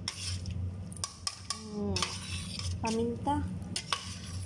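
Metal ladle stirring in a large stainless steel stockpot of broth, scraping and clinking against the pot's side several times, over a steady low hum.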